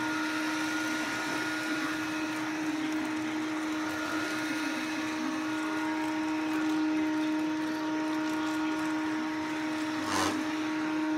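Samsung POWERbot robot vacuum running, its suction motor giving a steady hum with a constant whine. A brief knock sounds about ten seconds in.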